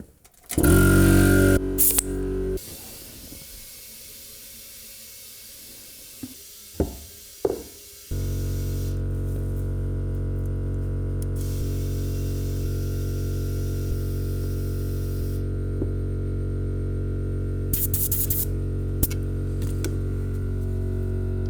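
A short loud noise near the start, then a faint hiss of air with a few clicks, and about eight seconds in an air compressor starts and runs with a steady hum while a flat-prone trailer tire is inflated to about 25–30 psi.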